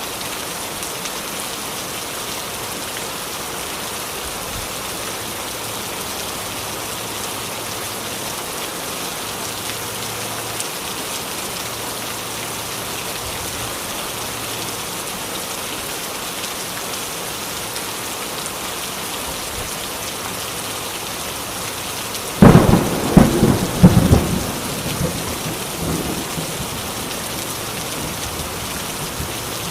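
Heavy rain pouring steadily. About three quarters of the way through, a sudden loud thunderclap crashes and rumbles away over several seconds.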